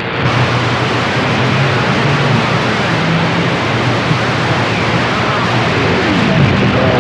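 CB radio receiver hiss on 27.025 MHz: loud, steady static with a faint low hum underneath, an open channel with no one talking.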